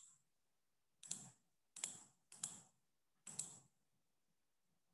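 Four faint, sharp clicks at a computer, unevenly spaced between about one and three and a half seconds in, over near silence.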